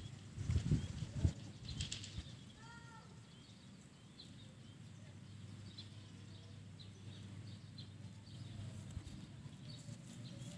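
Quiet outdoor ambience with a steady low hum, a few bumps and rustles in the first second or so, a short call a little under three seconds in, and faint high chirps scattered through.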